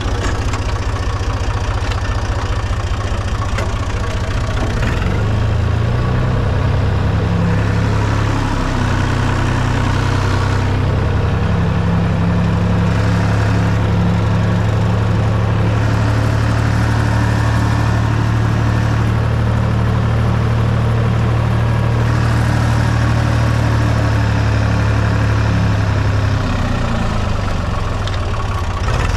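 Fiat Someca 500 tractor engine running while ploughing, with its speed changing: it picks up about five seconds in, holds steady for a long stretch, then drops briefly near the end.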